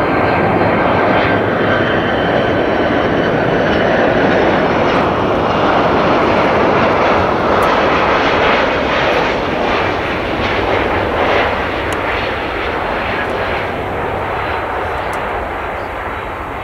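Jet engines of a Boeing 767 airliner, a loud steady roar as the aircraft passes, fading gradually over the last several seconds.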